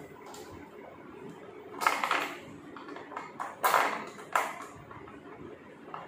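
Metal spanner clinking and scraping against the top-load washing machine's metal gearbox mounting plate as the bolts are worked, with three louder clattering scrapes about two, three and a half, and four and a half seconds in.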